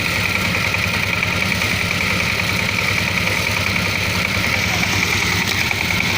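Small engine of a tiller running steadily.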